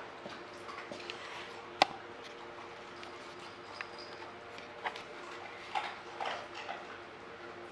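Wet snow and drips ticking and tapping irregularly on a translucent plastic patio roof, over a steady faint hiss and low hum; one sharp tick about two seconds in is the loudest.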